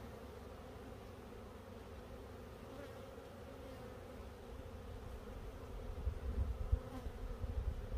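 A colony of honeybees buzzing at an opened Warre hive as a steady hum. From about five and a half seconds in, an uneven low rumble joins it.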